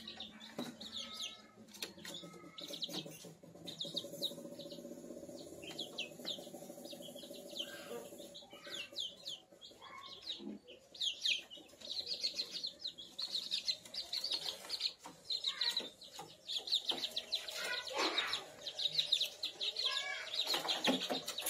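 Month-old kampung chicks peeping: many short, high chirps overlapping throughout.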